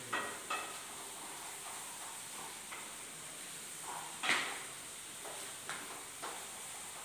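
Food frying in hot oil in a pan with a steady sizzle, while a spatula scrapes and knocks against the pan as it is stirred: a few short strokes, the loudest about four seconds in.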